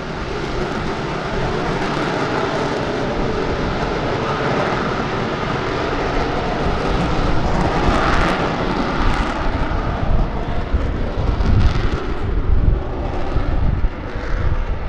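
F-35B Lightning II's F135 jet engine and lift fan running in a vertical-lift hover, a loud, continuous jet roar. In the second half it comes with uneven low rumbling surges.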